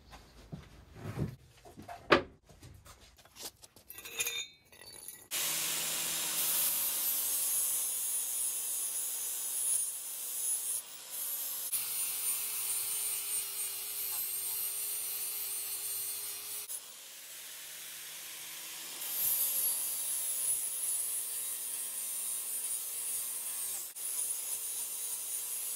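A few clicks and knocks, then from about five seconds in an electric angle grinder running and grinding the cut edges of stainless steel exhaust collector parts to trim them true and smooth. The grinding eases for a couple of seconds about two-thirds of the way through, then bites again.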